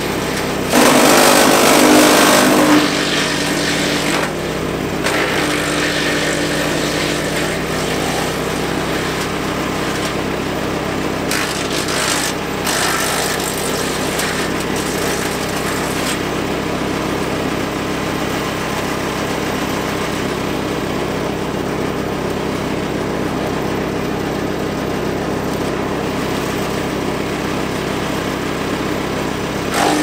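Victory MDWC1500 wood chipper/shredder's 13.5 HP gas engine running steadily at speed while hardwood branches are fed through. A loud grinding burst of chipping comes about a second in and lasts about two seconds, with shorter bursts around four and eleven seconds in.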